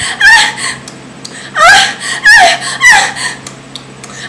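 A woman giving about five short, high-pitched, wavering vocal cries, mimicking moans of sexual pleasure.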